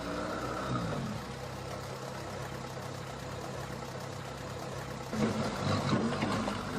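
Sherp off-road vehicle's engine running at a steady low idle, then growing louder and rougher about five seconds in as it picks up revs.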